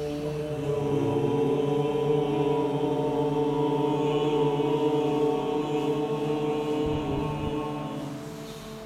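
A man chanting one long "Om" on a single steady low note, held in one breath for about nine seconds and fading near the end.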